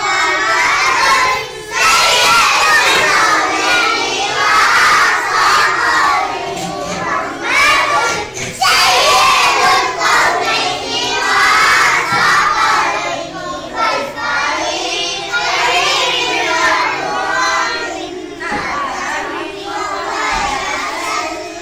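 A group of young schoolchildren chanting loudly together, in phrases a couple of seconds long with brief pauses between them.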